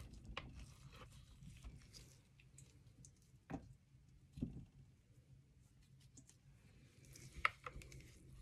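Faint scraping and squishing of a utensil scooping soft solid coconut oil out of a tub into a stainless mixing bowl, with three light knocks, the sharpest near the end.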